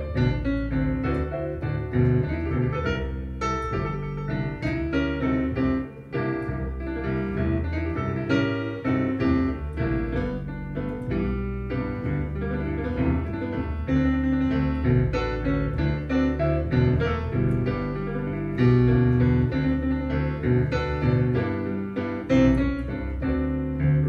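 Boogie-woogie piano music played back from CD through a pair of Martin Logan SL-3 electrostatic loudspeakers and picked up by microphones in the room: a steady run of piano notes over a repeating bass line.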